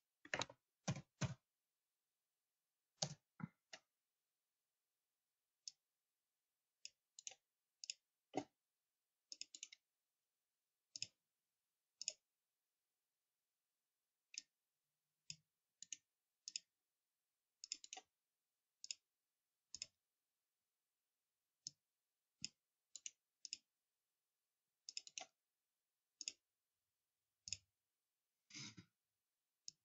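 Scattered computer mouse clicks, single and in quick pairs or threes at irregular intervals, with near silence between them.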